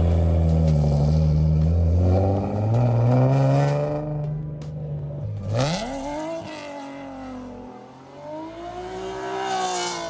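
Nissan 370Z drift car's engine revved and held high close by, stepping up in pitch partway through. It then drops off, and the car accelerates away with the engine note rising and falling, fainter with distance, swelling again near the end.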